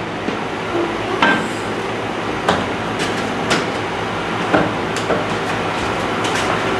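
Footsteps knocking on a hard floor: about six sharp knocks at irregular intervals, over a steady background hiss.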